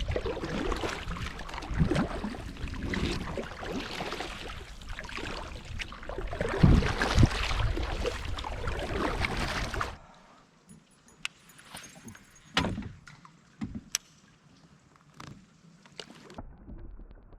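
Kayak moving on a creek: about ten seconds of loud rushing and scraping with irregular thumps against the hull. It then cuts off abruptly to a quiet stretch with scattered sharp clicks and knocks.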